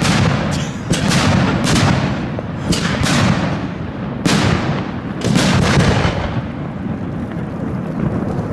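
Aerial firework shells bursting in quick succession, heard from right beside the firing site: a string of sharp booms, sometimes less than half a second apart, over a continuous low rumble.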